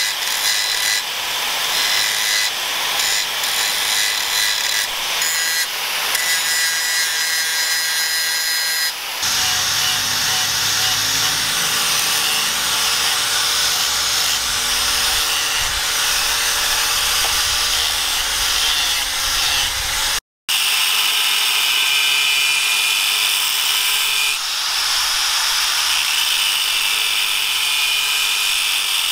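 Handheld angle grinders cutting and grinding leaf-spring steel, a steady, loud, high grinding noise from the disc on the metal. The tone of the grinding changes a few times, with a brief moment of silence about two-thirds of the way through.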